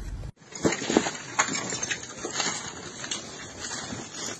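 Debris from a collapsed building clattering and knocking irregularly as rubble is cleared by hand, with a few sharp knocks in the first couple of seconds.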